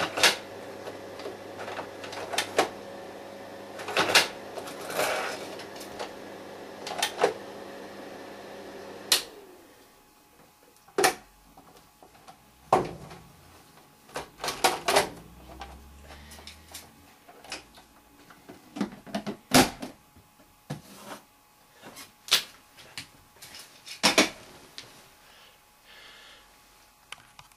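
Kindermann slide projector: a steady hum runs under sharp mechanical clacks and clicks, then the hum cuts off about nine seconds in. Scattered clicks and clacks of the mechanism and handling go on in the quieter stretch after.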